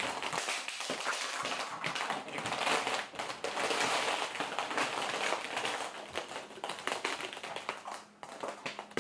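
Hollow plastic blind-box capsules clacking and clattering against one another in a continuous run of small knocks as they are handled and shifted about by the handful.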